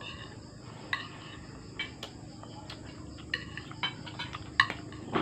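Spoon and fork clinking and scraping on a dinner plate while eating, in several short, sharp clinks spread through the few seconds.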